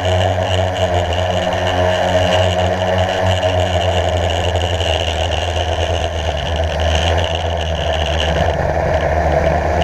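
Blade 350 QX quadcopter's four brushless motors and propellers whirring steadily in flight, heard from its onboard camera: a low hum with a high whine over it, shifting slightly in pitch as it manoeuvres.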